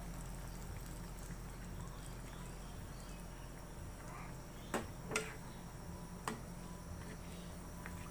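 Chicken simmering in barbecue sauce in a frying pan, a low steady bubbling. Three short sharp clicks come in about halfway through.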